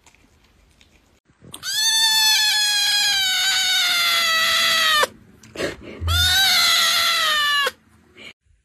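Kitten meowing loudly: two long, drawn-out cries, each slowly falling in pitch, the second one shorter.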